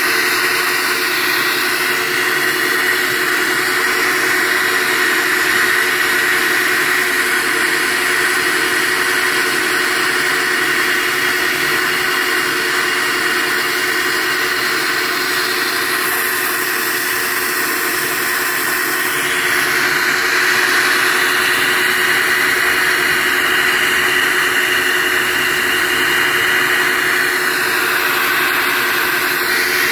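SuperFlow flowbench running, drawing air through a cylinder head's intake port: a steady rushing roar of air with a constant hum from the bench motors. It gets slightly louder about two-thirds of the way through.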